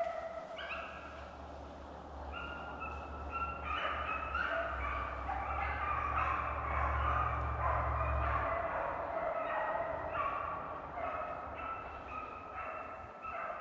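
A pack of deer hounds baying, many drawn-out bawls and yelps overlapping one after another, the sound of the dogs having jumped a deer and running it.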